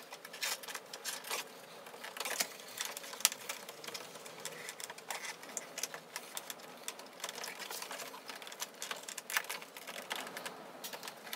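Plastic retaining clips of a BMW M2's chrome kidney grille clicking and creaking irregularly as fingers push them in one by one to free the grille. There is a loud sharp click right at the end.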